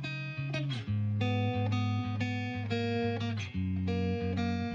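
Background music: a light tune on plucked guitar, with a steady run of notes.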